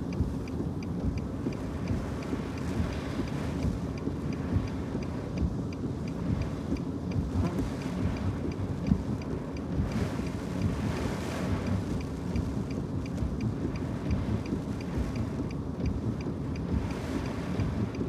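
Severe storm wind buffeting the car and the microphone: a heavy, gusting rumble. A faint regular ticking runs underneath.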